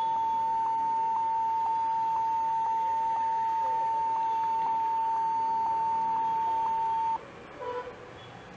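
Compaq Presario laptop sounding a continuous, steady beep tone while it boots, which cuts off suddenly about seven seconds in.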